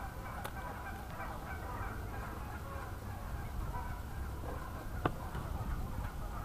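Waterfowl calling over the lake: a steady chatter of many short calls. A single sharp click comes about five seconds in.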